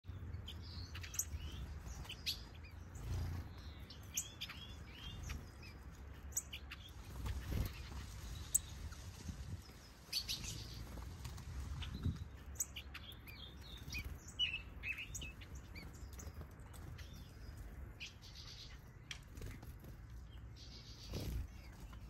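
Small aviary finches and softbills chirping and calling: many short, high chirps and tweets, often overlapping, with a few low muffled thumps among them.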